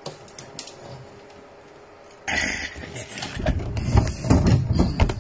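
Phone handling noise: a few faint clicks, then about two seconds in a sudden rustle on the microphone, followed by a run of bumps and rubbing knocks as the phone is moved about.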